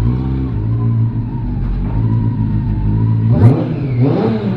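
Motorcycle engine idling steadily, then a quick rev about three seconds in, its pitch rising and falling back.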